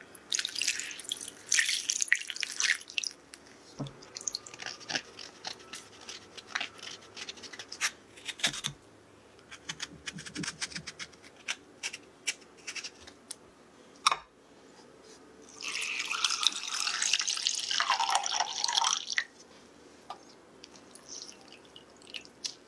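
Water poured over peaches in a glass bowl, followed by scattered taps and scrapes as the peaches are handled and peeled with a vegetable peeler. Later, water is poured into a saucepan for about four seconds.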